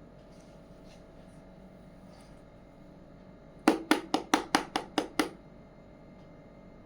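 Eight quick, evenly spaced taps of small hard pieces, about five a second, each dying away fast, a few seconds in.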